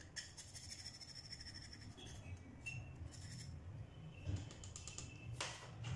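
Knife blade scraping and shaving a small carbon motor brush, trimming the oversized brush down to fit the holder of a centrifuge motor. Faint, repeated scratchy strokes, with one louder stroke near the end.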